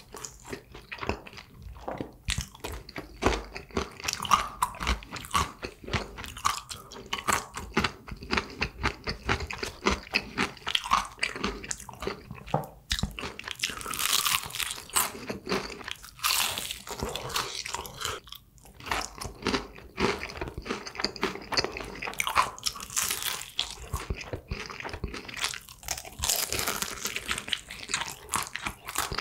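A person biting and chewing honey-glazed fried chicken, a steady stream of crackling crunches from the crisp crust, with louder bursts of fresh bites around the middle and again near the end.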